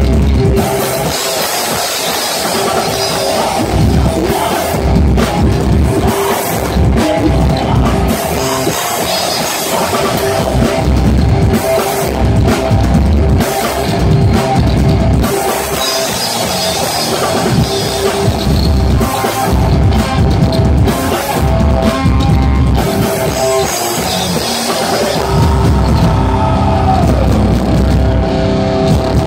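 Rock band playing live: electric guitar, bass guitar and drum kit.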